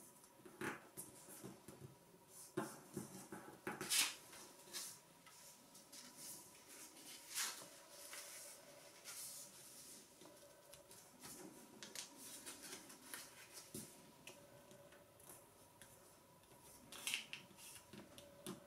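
Sheet of origami paper being folded by hand: irregular rustles, crinkles and short swishes as the paper is lifted, folded over and its creases pressed flat with the fingers, loudest about four seconds in and again about seven seconds in.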